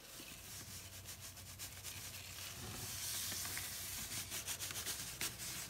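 Cloth drawstring bag being slowly slid and rubbed over newspaper, a soft rustling scrape that swells in the middle, with small paper crackles toward the end.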